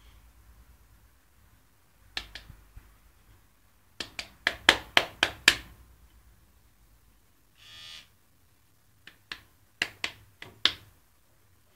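Sharp clicks and taps in quick runs of hard plastic knocking, as a cat bats and bites at an electric shaver, with one short buzz just before the eight-second mark.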